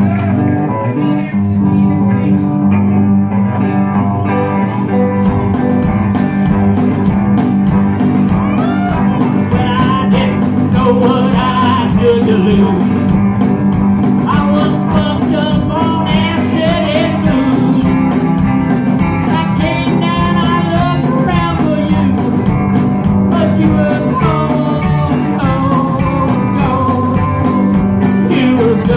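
Live rock band starting a song with amplified electric guitars and bass. The drums and cymbals come in about five seconds in.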